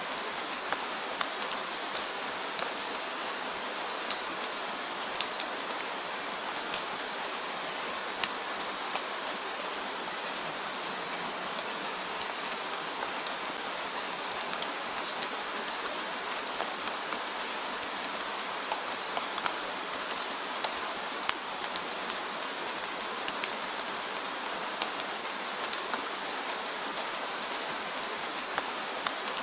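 Steady rain falling, a constant hiss with many separate drops ticking sharply on a surface.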